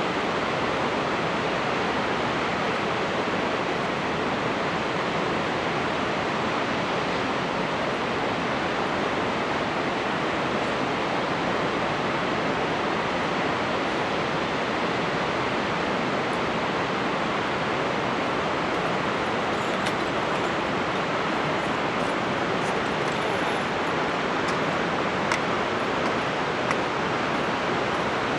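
Steady, unbroken rush of Shōmyō Falls, a waterfall about 350 m tall, with its water pouring down in a constant, even noise.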